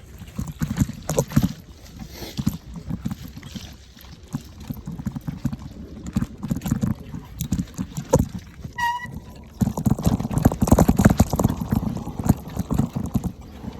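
Mountain bike rolling over a rough dirt trail: rapid irregular rattling and knocking over a low rumble. There is a brief high squeak about nine seconds in, and the clatter gets louder from about ten seconds in.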